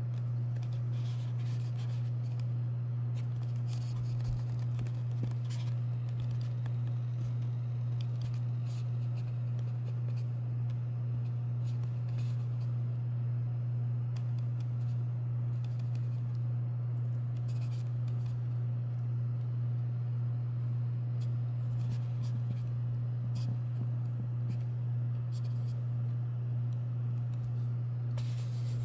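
Steady low electric hum from a small motorized display turntable. Faint, scattered light clicks and scrapes sound over it, with a somewhat louder cluster near the end.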